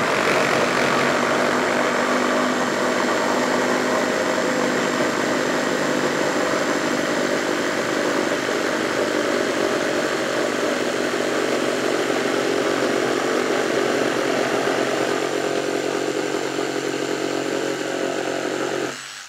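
One-handed cordless reciprocating saws, a brushless Bauer and a Ryobi, running at full speed and sawing down through a wooden board under a 7.5 lb hanging weight. Steady sawing that stops abruptly just before the end.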